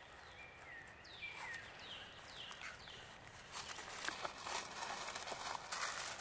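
A bird calls with a series of short chirps that slide downward in pitch. From about halfway on, irregular crunching footsteps in dry leaf litter take over.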